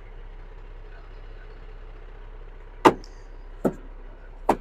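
Paccar MX13 diesel engine idling, heard as a steady low hum inside the truck's cab. Three sharp clicks fall in the second half, about a second apart, the first the loudest.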